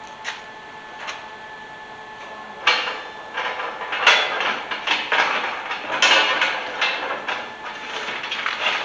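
Metal pieces clattering, clinking and scraping as they are handled, starting with a couple of light clicks and becoming a busy, irregular clatter about three seconds in.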